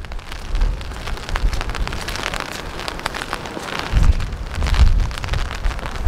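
Rain pattering on a clear plastic umbrella held overhead: a dense, continuous spatter of drop taps. Low wind rumble on the microphone swells about four and five seconds in.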